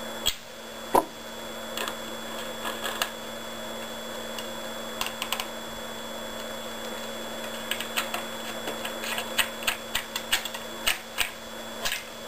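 Small scattered clicks and taps of white PVC pipe fittings being handled and fitted together, as an aluminum burst disc is set into a union socket of a homemade pneumatic gun. Two sharper clicks come in the first second and more follow near the end, over a steady low hum.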